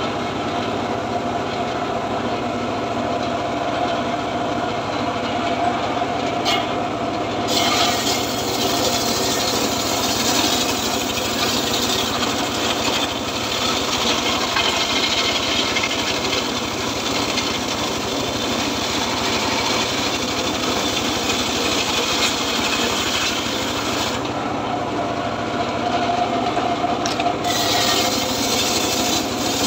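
Homemade circular saw ripping a dry acacia log lengthwise, the blade rasping through the very hard wood over a steady engine drone. The cutting noise eases briefly about six seconds in and again for a few seconds around twenty-four seconds.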